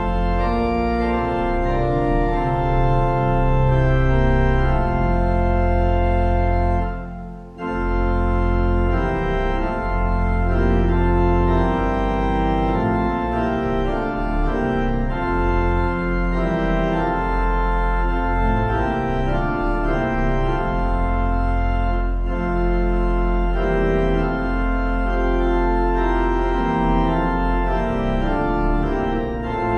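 Organ music: sustained chords over a deep bass line, with a brief break between phrases about seven seconds in.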